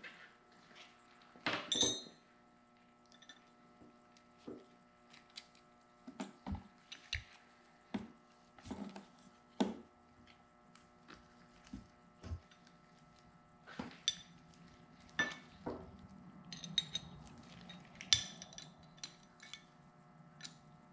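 Scattered metal clinks and knocks as a wrench and steel hydraulic fittings are handled on a workbench while a fitting is fitted to a hydraulic cylinder. The loudest clatter comes about two seconds in, over a faint steady hum.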